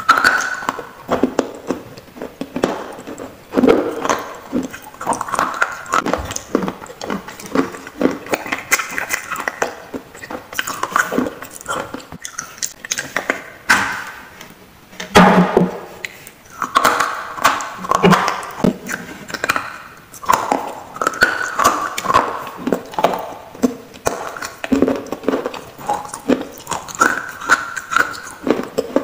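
Pieces of a broken terracotta clay piggy bank (gullak) being bitten and chewed close to the microphone: an irregular run of sharp crunches, several a second.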